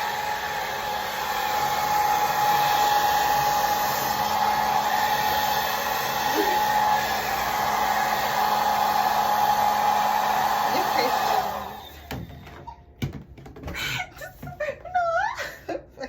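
A Conair mid-size blow dryer runs steadily, a loud rush of air with a thin steady whine, and is switched off about twelve seconds in. Light clicks and handling noises follow.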